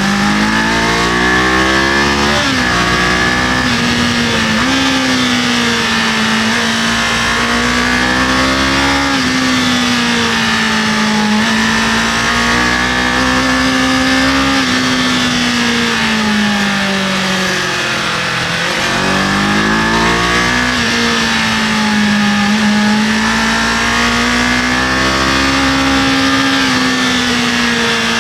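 Kawasaki KLE500 parallel-twin engine under way, its pitch rising and falling with throttle and gear changes. It climbs about a second in, dips briefly near 2.5 s, sags to a low point around 18 s, then rises again quickly, over a steady rush of wind noise.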